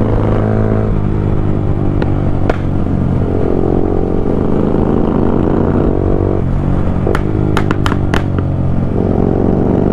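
Royal Enfield GT 650 parallel-twin engine running under way, fitted with a Code 6 tune. The revs drop off twice and climb again. Each time the throttle is rolled off, sharp exhaust pops and crackles follow, a few at first and then a quick cluster of them.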